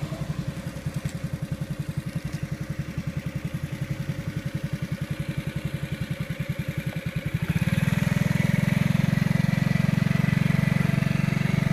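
An engine running with an even low chug. About seven and a half seconds in it picks up speed and runs steadier and louder.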